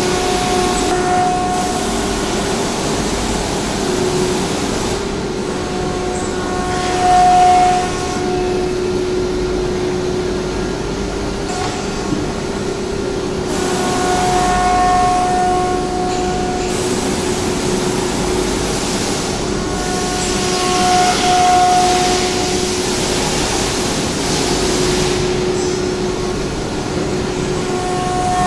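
CNC nesting router with an automatic tool changer running a cutting job on a wooden panel: a steady machine hum with a constant whine. A higher spindle tone swells and fades several times as the head works the board.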